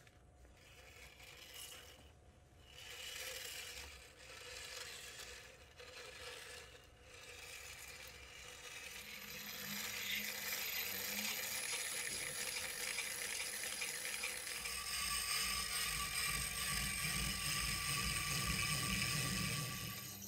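Water running onto a wet wheel-shaped sharpening stone with uneven splashing and rubbing, then about nine seconds in the grinding wheel's motor starts and the wet stone spins with a steady whir and a low hum that grows stronger later on.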